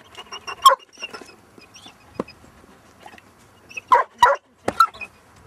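A dog barking: one short bark near the start, then three sharp barks in quick succession about four seconds in.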